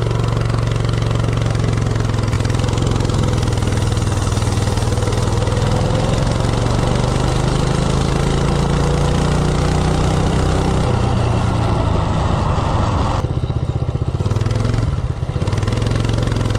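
LCT Storm Force 4.8 hp 179cc single-cylinder snowblower engine on a minibike running at full throttle under load in a 0–30 mph run, its note rising for about ten seconds as the bike accelerates. Near the end the throttle closes and the engine drops back as the bike slows. Wind rushes over the microphone throughout.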